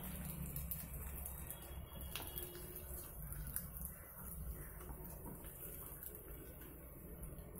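Faint rustling and a few light ticks of a banana leaf being pressed and peeled back off dough on an iron griddle, over a low steady hum.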